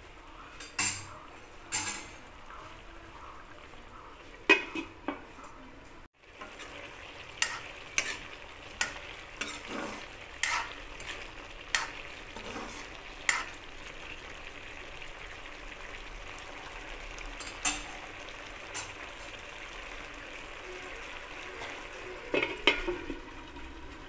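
Jackfruit curry sizzling in a wok as it is stirred, the spoon knocking and scraping against the pan now and then, with a short gap about six seconds in.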